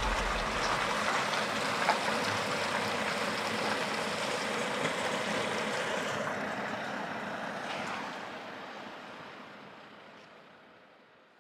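Steady rushing noise that fades away over the last few seconds to silence.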